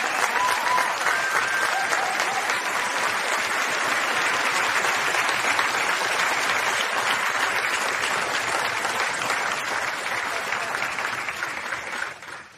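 Applause from a crowd: dense, steady clapping that dies away near the end.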